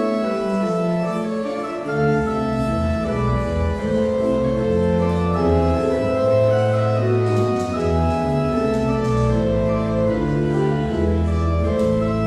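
Church organ playing sustained chords in a slow-moving classical style, with deep pedal bass notes coming in about two seconds in.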